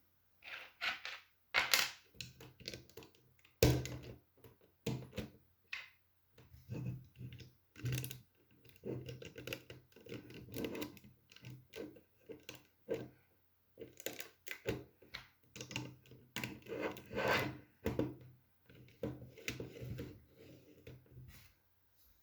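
Plastic Lego pieces being handled and clicked together: irregular sharp clicks and scratchy rattles in quick runs, with short pauses between them.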